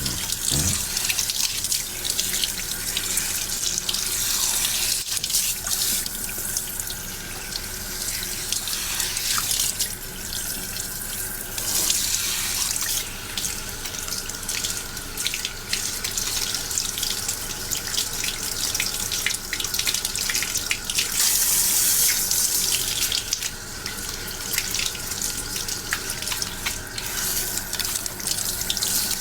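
Tap water running and splashing into a basin during a hair rinse, the splashing swelling and dipping as the flow moves over the head.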